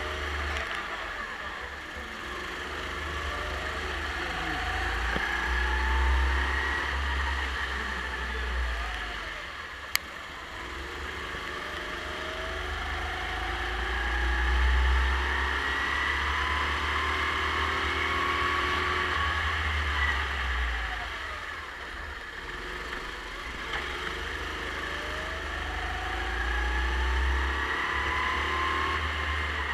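Racing kart engine heard onboard, accelerating in long rising sweeps along the straights and dropping off into the corners, several times over, on a wet track. A single sharp click about ten seconds in.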